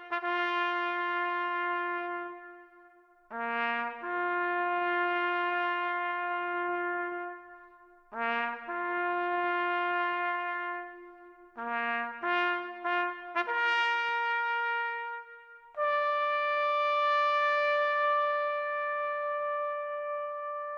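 A solo brass bugle call for the Act of Remembrance. It plays phrases of quick short notes that lead into long held notes, all on the bugle's few natural notes, and ends on one long high note that fades away.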